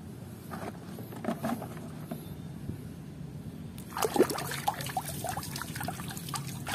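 A hand rummaging through a crate of plastic toy animals thickly coated in wet mud: soft wet squelches and light clicks of plastic on plastic, a few early on and busier in the second half.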